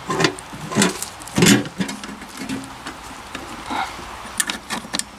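Metal ammo can being handled: its steel lid and clasp clack and scrape in a few sharp knocks as the lid is lifted and pressed back down, about a second and a half in and again a little over four seconds in.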